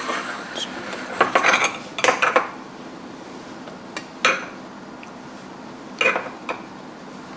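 Metal kitchenware and utensils clinking and knocking: a handful of separate clinks about one, two, four and six seconds in, over a faint steady hum.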